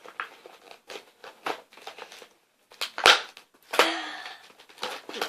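Cardboard box and packaging being handled and pulled apart: scattered rustles, crinkles and knocks, the loudest a sharp knock about three seconds in.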